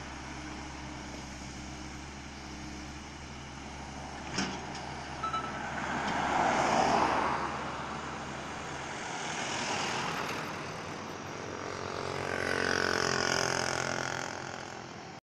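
Steady low idle of a diesel engine on a roadside with vehicles passing by, three rising-and-falling swells of engine and tyre noise, the last from a passing motorcycle; the low idle hum drops out about nine seconds in, and a couple of light clicks come just before the first pass.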